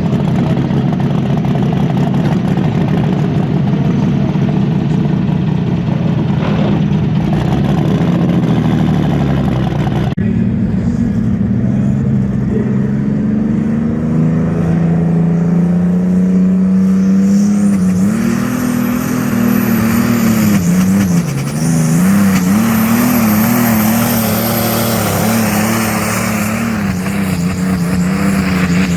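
Pulling tractor's engine running loud at high revs under load, its pitch climbing and then wavering up and down. The sound changes abruptly about ten seconds in.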